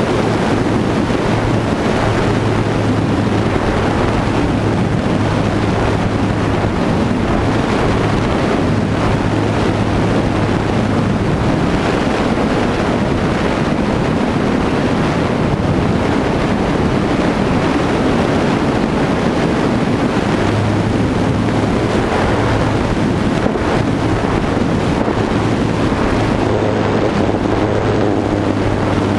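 Wind rushing over the microphone of an FPV plane's onboard camera in flight, with the low hum of the plane's motor and propeller under it. The hum is steady for the first stretch, fades through the middle, and comes back about two-thirds of the way through.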